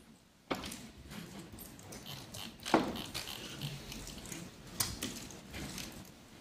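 Someone working at a laptop keyboard close to the microphone: three sharp knocks, the loudest near the middle, with light clicking and rustling between them.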